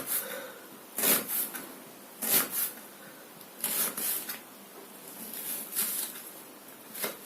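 Kitchen knife slicing an onion into half rings on a cutting board: about six separate, sharp cuts, spaced unevenly roughly a second apart.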